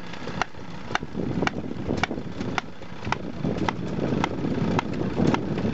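Small stationary engine running while belt-driving a bench machine, with a sharp, regular click about twice a second.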